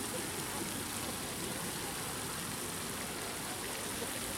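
Spray from a floating pond fountain falling back onto the water: a steady, even patter of droplets on the surface, like rain.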